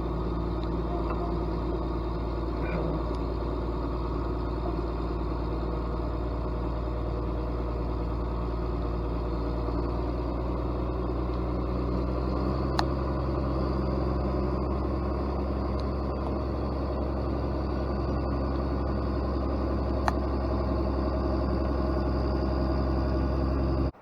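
Diesel engine of a piece of heavy logging equipment idling steadily, with two light clicks about halfway through and again later.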